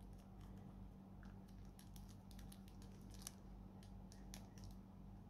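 Faint, scattered small clicks and crinkles of fingers picking at the clear plastic shrink wrap on a sealed trading card deck box, over a low steady hum.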